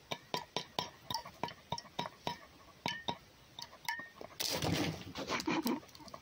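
Red fox's teeth clicking and tapping on an eggshell held in the hand, about four to five sharp clinks a second. About four seconds in a louder burst of rustling and scuffling takes over as the fox pulls away.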